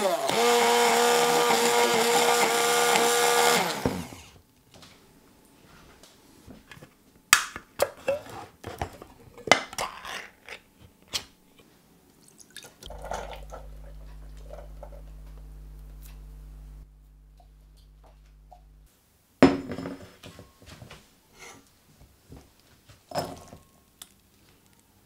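Immersion (stick) blender running at a steady pitch for about four seconds, puréeing roasted peppers with miso paste into a dressing in a glass jug, then switched off suddenly. After it come scattered light knocks and clinks as beans are tipped into a metal sieve to drain.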